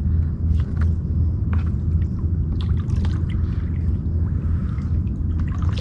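Kayak edging through mangroves: a steady low rumble with scattered small knocks, drips and splashes of water.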